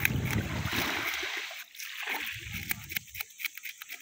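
A knife scraping scales off a fish on a wooden board in quick rasping strokes. A low rumbling noise underneath dies away about a second in.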